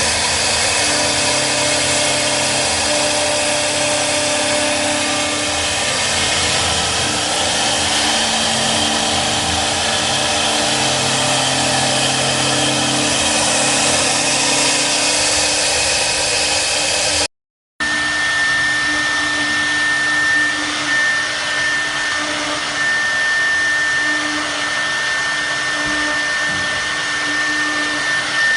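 Double-head CNC router with 6 kW HSD spindles running: a steady spindle whine and cutting noise over a loud hiss. The sound drops out briefly about two-thirds of the way through, and after that a steady high-pitched whine holds.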